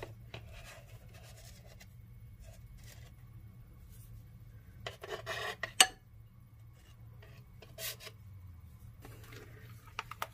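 Occasional scrapes of a kitchen spatula over a cheesecake's cream topping and its serving plate, with one sharp clink about six seconds in. Near the end a spoon scrapes quickly around a ceramic bowl of melted Lotus spread.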